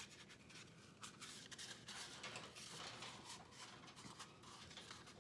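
Faint rustling and rubbing of a cardboard paper towel roll tube being pinched and flattened by hand, with scattered soft ticks.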